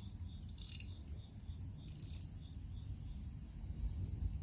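Crickets chirping in a steady rhythm, about four chirps a second, over a constant low rumble. A brief noise cuts in about two seconds in.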